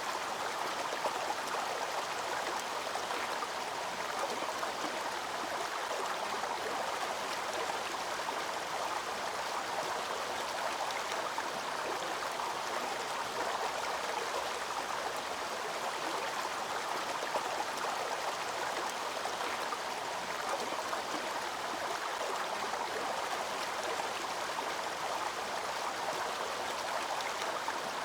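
Waterfall water rushing, a steady unbroken hiss with no pauses.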